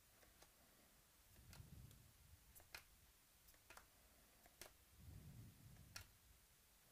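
Faint, irregular clicks and ticks of chromium Prizm trading cards being flipped one by one in the hands, with a couple of soft low handling rumbles.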